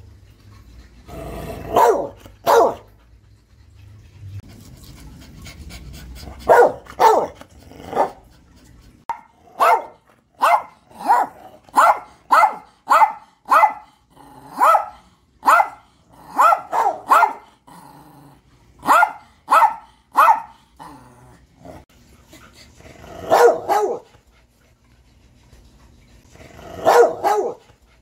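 Two dogs, a brindle pit bull-type and a small white Maltese-type, barking: a few scattered barks at first, then a quick run of about one and a half barks a second for some ten seconds, and two single barks near the end.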